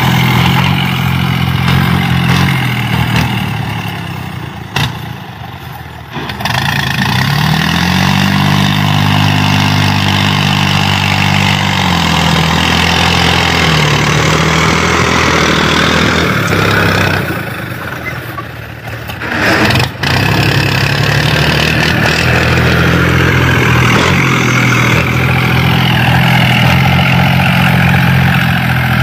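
New Holland Ghazi 65 hp tractor's diesel engine running as it works the dirt, revving up and easing off. The engine note dips away twice, each dip ended by a sharp click.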